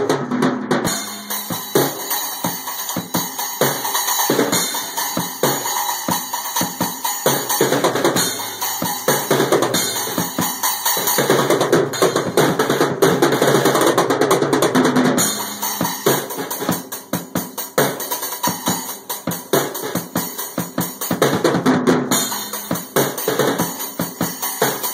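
A drum kit played hard with sticks: a fast, continuous run of drum strikes under ringing cymbals, with a stretch of busier drum rolls without cymbals about halfway through.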